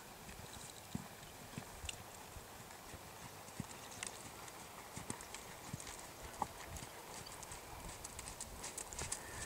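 Hoofbeats of a horse walking on a sand dressage arena, heard as irregular dull thuds.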